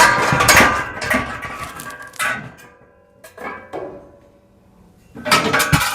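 Bed frame parts being shifted and handled, clattering and knocking with a ringing, metallic edge. A burst of clatter at the start, a single knock about two seconds in, quieter handling, then more clatter near the end.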